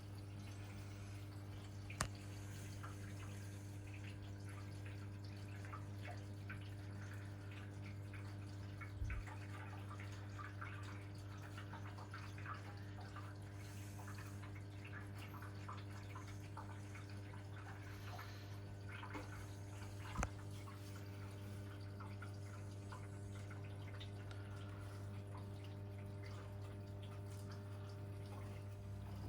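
Hoover Electra 535 Dual Spin washing machine filling for the wash: water trickling and splashing into the drum over a steady low hum, with three faint knocks.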